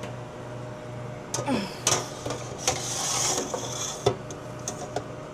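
Metal freeze-dryer trays clattering as they are handled and slid back onto the shelves: several sharp knocks, and a scraping slide about three seconds in, over a steady low hum.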